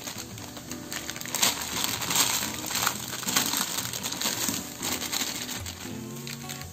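Rapid crackling and clicking from a wok of water at the boil as a dry block of instant noodles goes in and loose crumbs are shaken in from its packet.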